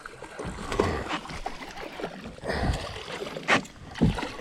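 Water sloshing and knocks against a kayak hull while a hooked bass is played and brought alongside, with sharp knocks about three and a half and four seconds in.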